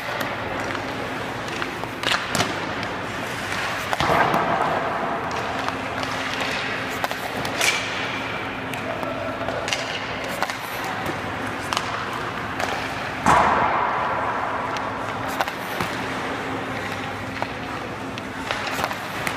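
White hockey pucks shot off a stick at a goaltender, one after another: a series of sharp knocks of stick on puck and puck on the goalie's gear, echoing through the rink, the loudest about four and thirteen seconds in.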